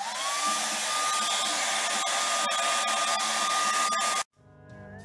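Handheld hair dryer switched on, its motor whine rising to a steady pitch within the first second, then blowing steadily before cutting off suddenly about four seconds in.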